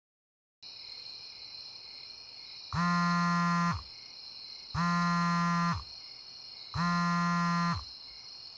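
A mobile phone vibrating: three buzzes of about a second each, two seconds apart, each winding down in pitch as the motor stops, signalling an incoming call. Under it runs a steady chorus of crickets.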